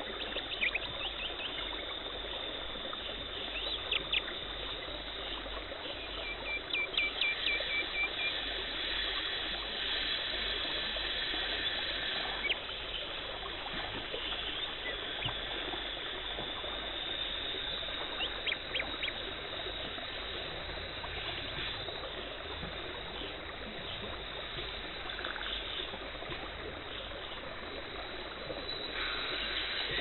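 Dental cleaning equipment running: a steady hiss of water spray and suction, with a run of quick beeps about six seconds in and a few scattered clicks.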